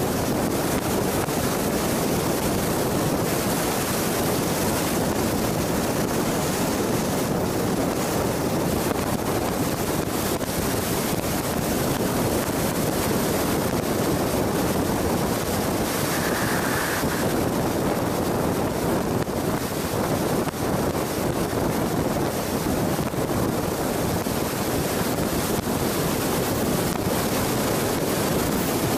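Steady rush of road and wind noise from a Jeep driving along a highway at speed.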